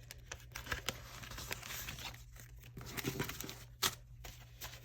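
Paper cash envelope and banknotes rustling and crinkling as they are handled, with a sharper snap just before four seconds in.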